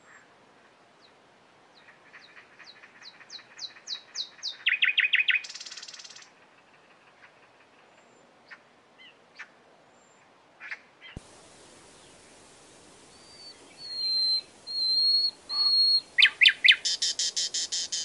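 Common nightingale singing: a run of repeated notes that speed up and grow louder into a fast rattle, a few scattered single clicks, then three long swelling whistles followed by another loud, rapid trill near the end.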